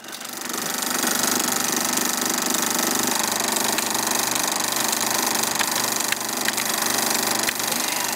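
Film projector running, a steady fast mechanical clatter that fades in over the first second, with a few sharper clicks near the end.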